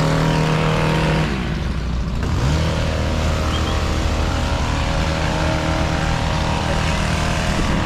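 An engine running steadily at a high, even pitch, which drops away sharply about a second and a half in, then settles to a lower steady run for the rest of the time.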